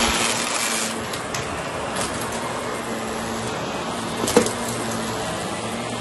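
Shark Lift-Away upright vacuum cleaner running steadily as it is pushed over carpet, with a few small clicks and one sharper click about four and a half seconds in.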